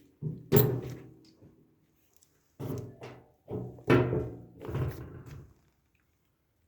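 Metal dryer parts being handled during reassembly: four clunks, each ringing briefly, the loudest about four seconds in.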